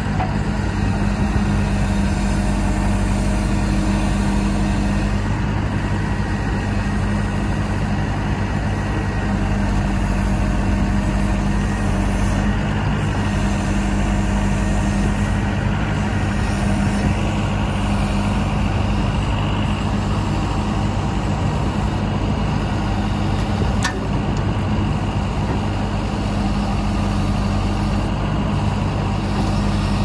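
Diesel engine of a John Deere 310SJ loader backhoe running steadily while the backhoe boom and bucket are worked hydraulically.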